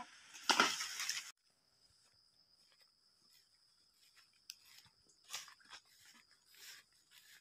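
An oil palm frond is cut with a long-poled harvesting sickle: a loud rustling crash of leaves in the first second, which cuts off abruptly. It is followed by a faint steady high-pitched whine and a few soft rustling footsteps through grass.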